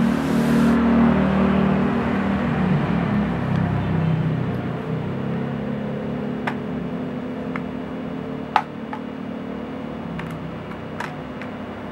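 Sharp plastic clicks, a few seconds apart, as the laptop's bottom case is pried open and its clips let go; one click about two-thirds of the way through is the loudest. A steady low hum runs underneath, louder at the start.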